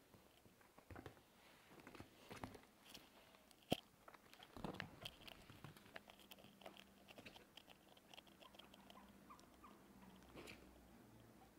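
Faint scattered taps and scrabbling of a guinea pig's feet on a leather sofa as it scampers about, with one sharper click just under four seconds in and a soft thump just after.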